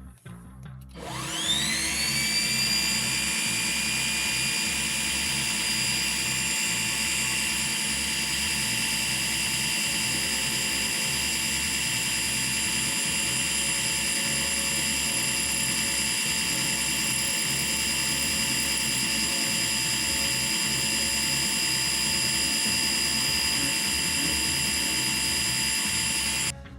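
A benchtop metalworking machine tool's electric motor and spindle spin up about a second in, rising in pitch, then run steadily with a high whine. The sound cuts off abruptly near the end.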